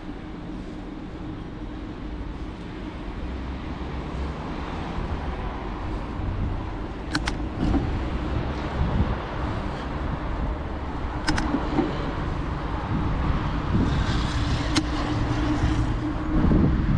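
Wind and road rumble on an action camera riding along a road, with motor traffic around it; the noise slowly grows louder. A few sharp clicks stand out about 7, 11 and 15 seconds in.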